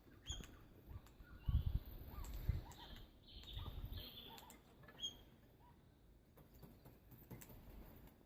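Small birds chirping: a scatter of short, high chirps through the first five seconds, then fewer. Low thumps, louder than the chirps, come between about one and a half and four seconds in.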